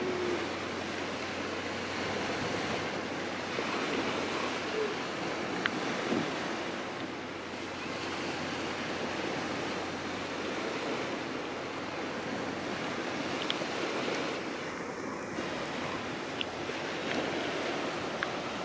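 Sea waves washing onto the beach: a steady, even rush of surf, with a little wind.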